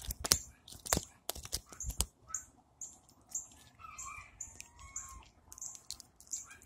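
Sharp clicks and knocks of hands and wrist handling the phone camera close to the microphone, mostly in the first two seconds. Behind them, a short high chirp repeats about twice a second, and a few birds call faintly.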